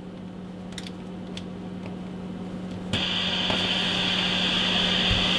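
Receiver noise (hiss) from the speaker of an Icom IC-201 2 m transceiver tuned to a weak FM test signal. The hiss grows slowly, then steps up sharply to a loud steady hiss about three seconds in, over a steady low hum. There are a couple of faint clicks in the first second and a half.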